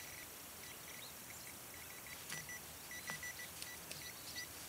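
Handheld metal-detecting pinpointer giving short, high beeps at one pitch, singly and in quick runs, as it is probed into a dug plug of soil to locate the target. A few faint clicks and scrapes of soil come through in the middle.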